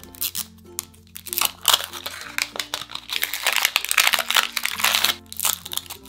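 Crinkly plastic wrapper crackling and tearing as it is peeled and pulled off a plastic toy capsule ball, over light background music.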